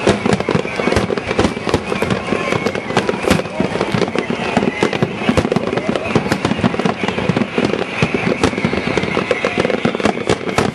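Grand-finale fireworks barrage: heavy aerial shells bursting in rapid, overlapping succession, a continuous rattle of booms and crackles with no gaps.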